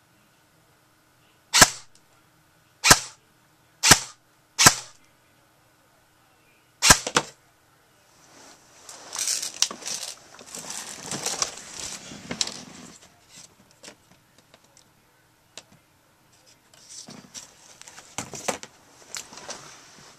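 Airsoft gun firing five sharp single shots over about five seconds, the last after a longer pause. Then come longer stretches of irregular rustling and crackling noise.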